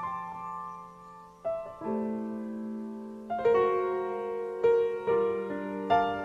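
Slow, gentle piano background music: chords and single notes struck every second or so, each left to ring and fade.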